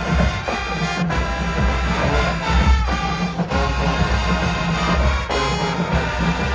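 College marching band playing a brass tune: trumpets and trombones over a strong, pulsing low end of tubas and drums.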